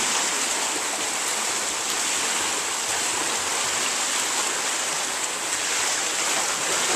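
Steady splashing of pool water from a swimmer kicking and stroking freestyle close by.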